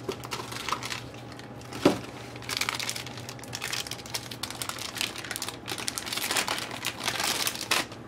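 Crinkling and rustling as a replacement laptop hard drive is handled, with one sharp click about two seconds in.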